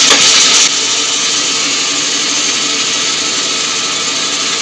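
Bandsaw cutting through a bark-covered firewood log. The hiss of the cut stops abruptly less than a second in, and the saw then runs on steadily with no load.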